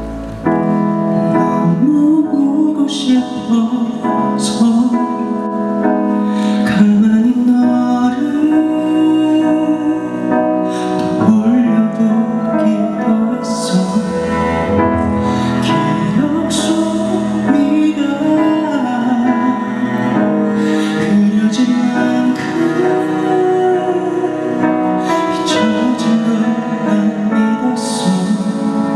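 A male voice singing with long held notes over piano and keyboard accompaniment.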